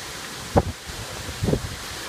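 Storm wind and rain giving a steady hiss in the trees, with gusts buffeting the microphone in two low rumbling blasts, about half a second in and again near a second and a half.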